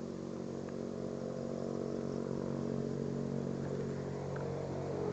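Steady low hum with a light hiss from an amateur radio receiver while the ISS downlink voice has dropped out mid-sentence. It gets slightly louder near the end.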